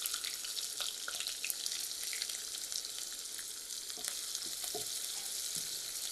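Sliced onions sizzling steadily in hot oil in a karai, with a wooden spatula stirring and scraping them a few times in the second half.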